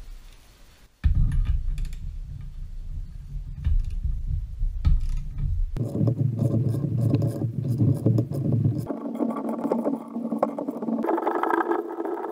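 Ratchet wrench clicking as it turns the threaded spindle of a bushing press tool, drawing a new bushing into the control arm. It starts about a second in, with rapid clicks throughout.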